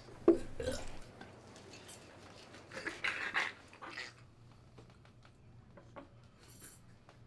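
A man eating noisily, making loud animal-like noises over his plate in two bursts, the first just after the start and the second about three seconds in. Cutlery clicks on plates through the rest.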